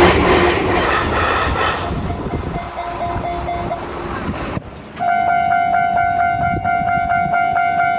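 A train running past over the rails, with a level-crossing alarm ringing underneath; about halfway through it cuts off abruptly and a Japanese railroad-crossing bell rings loud and close, a steady 'kan-kan' of about three strokes a second.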